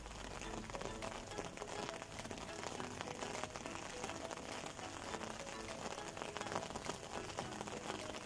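Steady rain pattering, many small drops ticking evenly, with faint music underneath.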